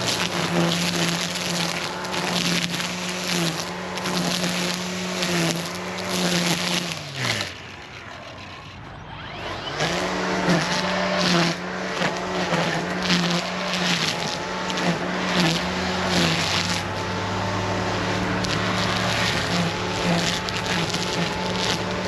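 Battery-powered electric chainsaw cutting wood, its motor whine dipping in pitch again and again as the chain bogs in the cut, with wood crackling. About seven seconds in the motor winds down to a stop, then it starts up again a couple of seconds later and goes on cutting.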